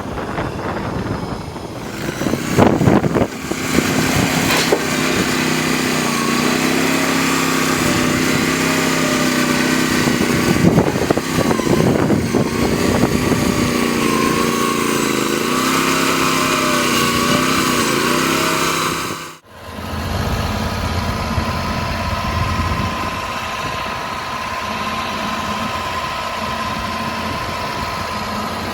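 Mini skid steer loader's engine running, its pitch dipping and recovering again and again as it works. A sudden break comes about two-thirds through, followed by steadier running.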